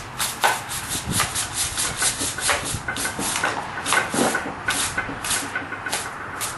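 A stiff brush scrubbing rust off a blacksmith's vise after electrolysis, in quick scratchy strokes of about four a second.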